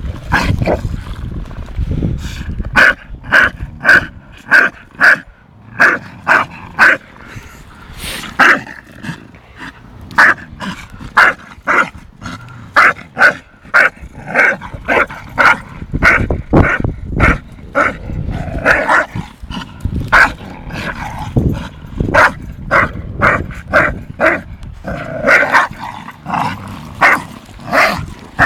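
Dog barking again and again, short sharp barks about one to two a second, the play barking of a tug-of-war play fight between two bull-breed dogs.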